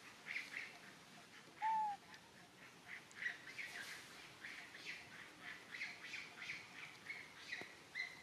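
Small birds chirping: short high calls repeated irregularly, with one louder clear whistled note that rises and falls about two seconds in.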